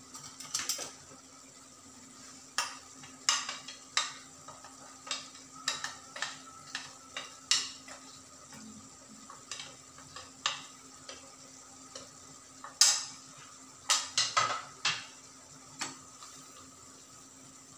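Steel ladle scraping and clinking against a stainless steel pan as ground spices are stirred into a simmering onion-tomato gravy: irregular clicks and scrapes, the loudest about thirteen seconds in, over a faint steady hum.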